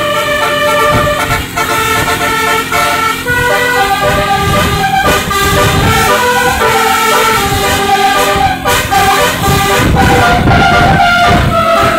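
A tour bus's Basuri telolet horn playing a melody of brassy stepped notes without a break, with a vehicle rumble underneath.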